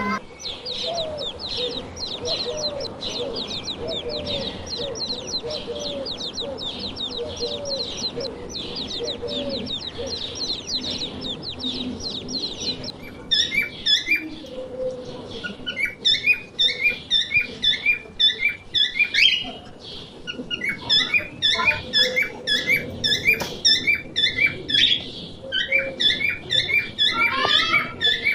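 Small birds chirping rapidly and continuously. About halfway through, the chirping turns louder and more clipped, with short chirps repeated over and over.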